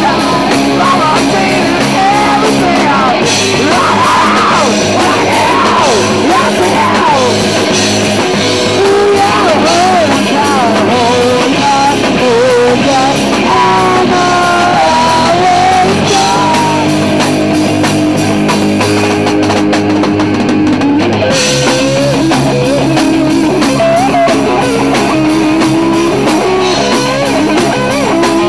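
Live rock band playing loud: drum kit, electric guitars and a singing lead voice. The cymbals drop out for about two seconds past the middle, leaving held chords.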